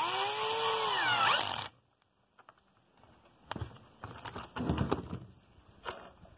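Cordless drill-driver with a Torx bit running a screw into a Stihl MS 194 T chainsaw body, fastening the bumper spike. The motor whine rises and falls in pitch, then stops abruptly a little under two seconds in; a few knocks and clicks follow.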